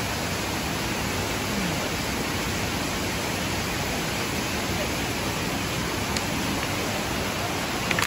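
Steady rushing of a waterfall, an even wash of falling water that holds at one level throughout.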